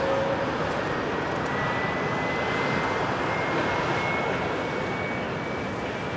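Jet airliner engines running: a steady rushing noise with a thin whine that rises slowly in pitch.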